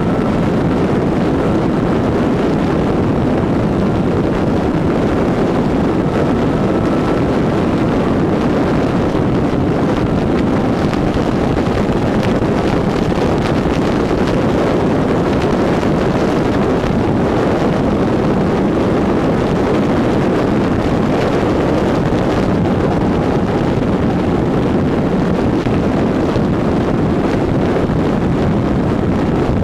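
Steady rush of wind on a motorcycle-mounted camera's microphone at highway cruising speed, over the drone of the Honda CB1000R's inline-four engine running steadily.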